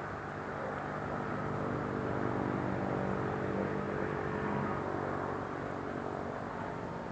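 A vehicle engine passing by, its hum swelling about a second in and fading after the middle, over a steady background of city noise.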